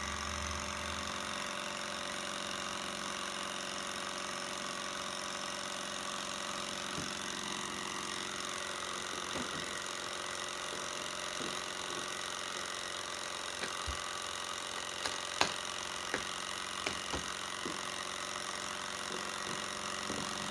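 Bohm HB14 twin-cylinder Stirling engine running steadily, with a few sharp clicks about two-thirds of the way through.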